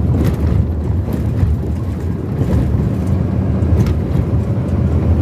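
Vehicle driving along a highway: a steady low rumble of engine and road noise.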